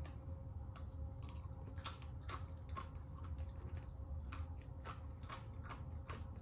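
Close-up chewing of crispy fried chicken, with sharp crunches about twice a second, over a steady low hum.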